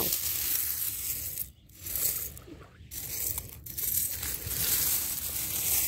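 Loose seashells clinking and crunching as a hand sorts through a bed of shells, over a steady background hiss.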